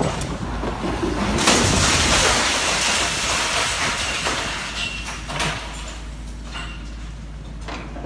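Reinforced-concrete wall section breaking away and collapsing onto rubble as a demolition excavator pulls it over. A long, loud crashing and scraping that swells about a second and a half in, then slowly dies away.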